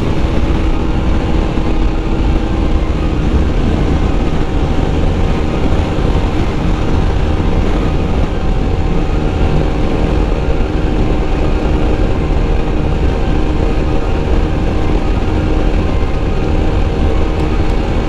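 Motorcycle running steadily at highway speed, its engine note under a heavy low rumble of wind on the helmet microphone.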